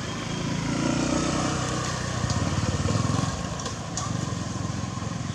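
Motorbike engine passing on the road, growing louder and then fading away a little past the middle.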